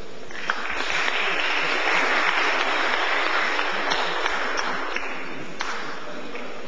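Audience applauding. It swells up about half a second in and dies away after about five seconds.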